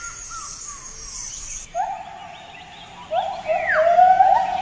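Forest insects buzzing high and steady, cut off about a second and a half in. Then lar gibbons start singing: a run of hooting notes, each sliding upward in pitch, the series growing louder toward the end.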